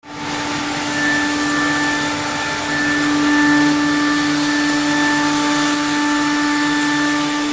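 CNC wood-carving router's spindle motor running at a constant speed, giving a steady whine over a rushing hiss as it carves wood.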